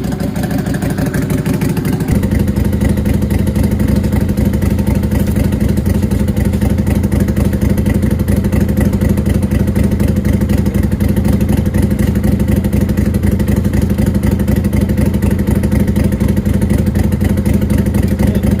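Lifan LF250-H V-twin motorcycle engine running steadily through its curved horseshoe exhaust after a rebuild; about two seconds in the engine note steps up a little and then holds steady.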